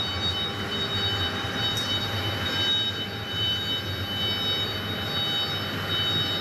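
Steady workshop machinery noise: a constant low hum with an even high-pitched whine over it, and no distinct strokes or changes.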